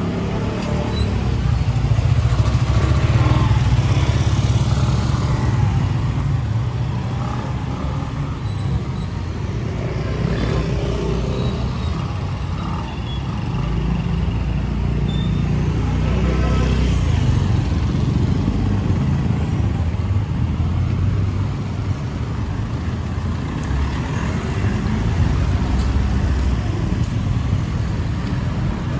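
Street traffic on a narrow road: small motorcycle and motorcycle-tricycle engines running steadily, swelling louder several times as vehicles pass and fading again.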